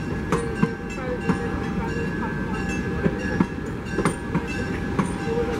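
A slow-moving passenger train of a caboose and coaches rolling past, its wheels giving irregular clicks and clunks over the rail joints over a steady rumble, with a thin, steady, high wheel squeal.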